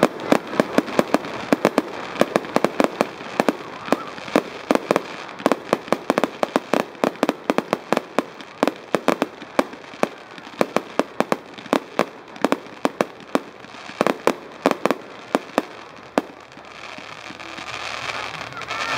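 Aerial fireworks firing in a rapid barrage: a fast, uneven string of sharp bangs, about three or four a second, that stops about sixteen seconds in.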